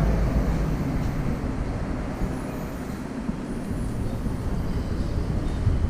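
Steady low rumble of road vehicle noise, without distinct events.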